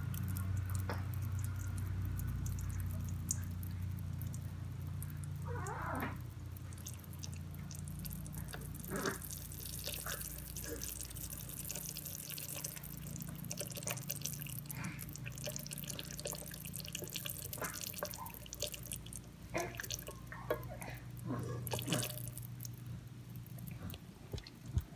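Hot sugar syrup poured from a saucepan in a thin stream into a stainless steel mixer bowl, dripping and trickling, with a few small knocks. A steady low hum runs underneath.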